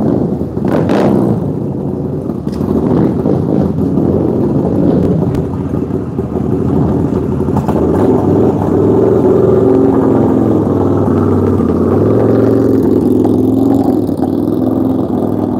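A racing bagger motorcycle's V-twin engine running loud and steady, then pulling away near the end as the bike rides off.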